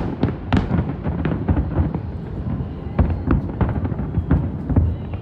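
Fireworks display: a rapid run of aerial shell bursts going off, several bangs a second over a continuous low rumble of distant explosions echoing across the harbour.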